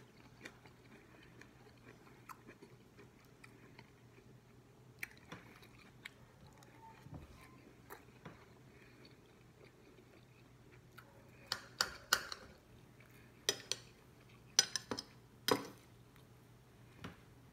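A person chewing baked chicken close to the microphone, with soft wet mouth clicks. From about eleven seconds in comes a cluster of sharp clicks and clinks of a metal fork against the plate.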